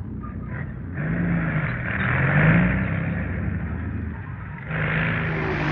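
Tank engines running and revving, their pitch rising and falling over a low rumble. The sound changes abruptly about a second in and again near the end.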